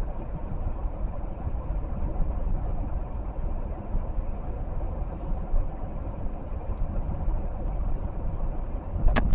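Car in motion heard from inside the cabin: a steady low rumble of road and engine noise, with one sharp click near the end.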